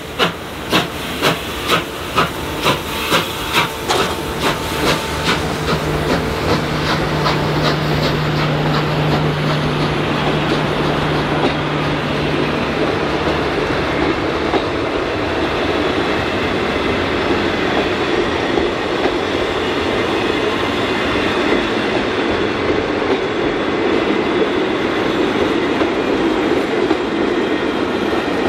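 Hudson steam locomotive R707 working hard, its exhaust chuffs coming about two a second and quickening as the train gathers speed. The beats fade into the steady rumble and clatter of carriages rolling past, with a low hum for several seconds partway through.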